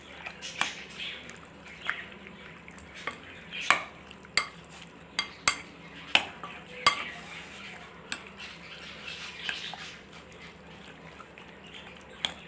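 A spoon stirring chunks of raw chicken through a wet marinade in a glass bowl, with irregular sharp clinks as the spoon knocks against the glass. The clinks are loudest and most frequent in the middle few seconds.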